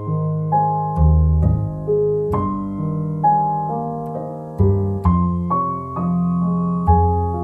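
Gentle background piano music: single notes and chords struck every half second or so, each fading away, over low bass notes.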